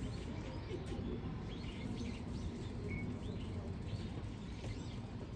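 Small birds chirping, short high calls repeated at irregular intervals over a steady low background hum.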